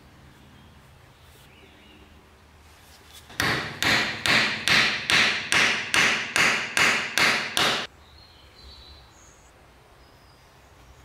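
Hammer blows driving a glued wooden dowel into a hole in a wooden scythe handle: about a dozen evenly paced sharp knocks, a little under three a second, starting a few seconds in and stopping abruptly.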